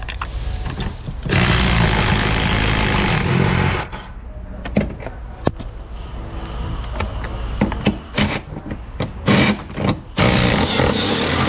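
Cordless ratchet running in two bursts, one starting about a second in and lasting a couple of seconds and another near the end, as it spins out a bolt. Between the bursts come scattered clicks and knocks of the tool and hardware being handled.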